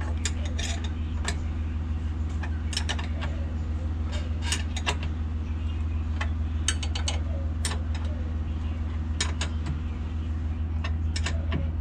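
Irregular sharp clicks and clinks of metal parts and hand tools being handled, over a steady low hum.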